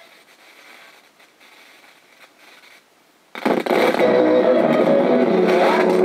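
Old tabletop radio playing faintly, then guitar music coming in suddenly and loud about three seconds in as the volume knob is turned up.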